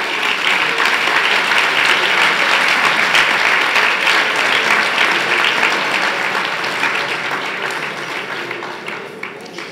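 Large audience applauding, swelling in the first second and slowly dying away toward the end.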